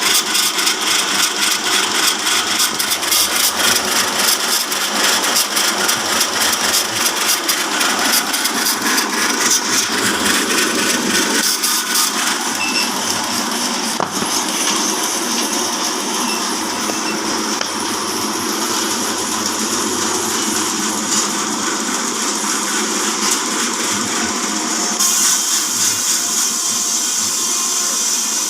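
Horizontal band sawmill driven by a 5 HP electric motor, its blade sawing through a log: a loud, steady mechanical noise with a fast rattle through the first half, changing in tone near the end.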